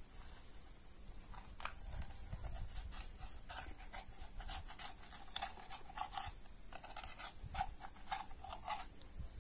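Metal spatula scraping fried eggs loose from a frying pan: a run of short scrapes, a few a second, starting about one and a half seconds in and stopping near the end.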